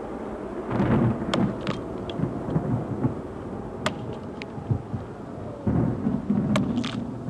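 Low rumbling noise that swells twice, about a second in and again near the end, with a few sharp crackles between, like distant thunder.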